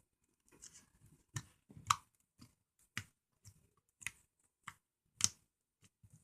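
Slime being squeezed and poked by hand, giving a series of sharp wet clicks and pops about two a second.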